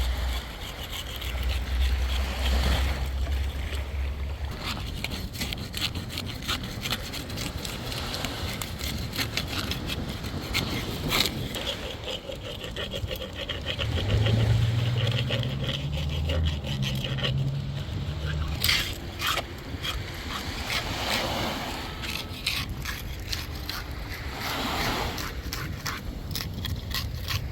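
Irregular scraping and clicking with a steady hiss, and two stretches of low rumble, one near the start and one about halfway through.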